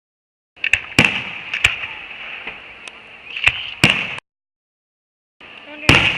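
Fireworks going off: several sharp bangs and pops over a steady hiss, lasting about three and a half seconds, with dead silence before and after.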